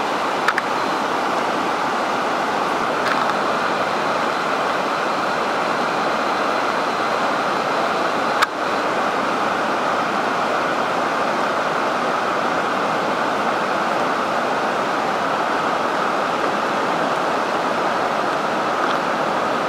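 Floodwater pouring over Tallowa Dam's wall and churning in the deep, turbulent pool below: a steady, heavy rushing of water. The dam is overtopping in major flood, about 2.7 m above its crest.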